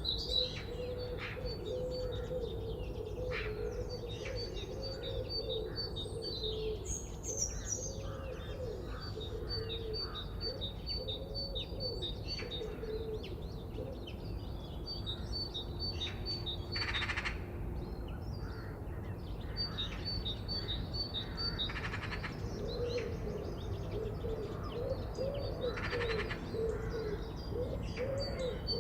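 Forest birdsong: trains of short, rapidly repeated high chirps, with a lower wavering call in places and a steady low background noise underneath.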